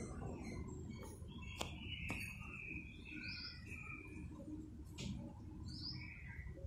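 Faint outdoor background: a small bird chirping a short, high call every two to three seconds over a low steady rumble, with a few sharp clicks.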